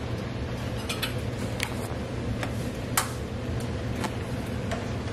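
Stainless steel canning funnel and glass canning jar clinking as the funnel is set into the hot half-pint jar: about seven light, sharp ticks, the loudest about three seconds in, over a steady low hum.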